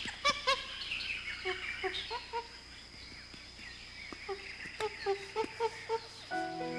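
Zoo ambience of birds calling repeatedly in short, pitched calls, with a few sharp clicks. Music comes in near the end.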